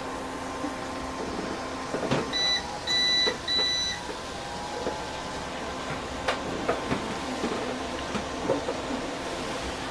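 An electric cooktop's control panel beeps three times a little over two seconds in, one short beep then two longer ones. Around the beeps, a steady hum runs underneath, with scattered light taps and scrapes of a spatula in a glass pan.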